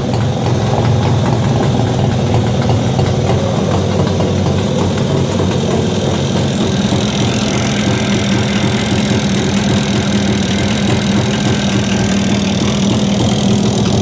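Jawa 350 type 638 two-stroke twin engine idling steadily at a low, warmed-up idle, with a knock that the owner puts down to the piston or maybe the crankshaft labyrinth seal or centre main bearing.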